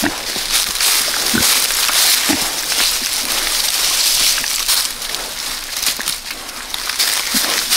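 Berkshire pigs rooting through dry pine straw and leaf litter: continuous rustling and crunching of the litter, with a few short low grunts.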